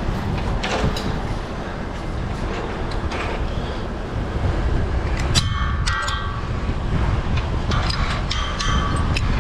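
Steady low rumble of heavy construction machinery, with several sharp metallic clanks that ring briefly, some about halfway through and more near the end.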